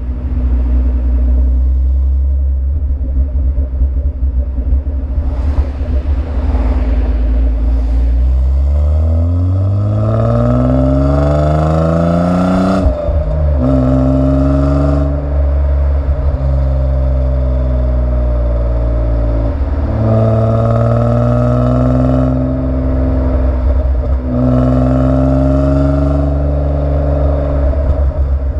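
BMW E36 325i's M50B25 inline-six engine and stock exhaust with a worn rear muffler, holding a steady drone at first. About eight seconds in it revs up steadily under acceleration to a sudden break at a gear change, then holds steady with a few more small rises and brief dips as the throttle changes.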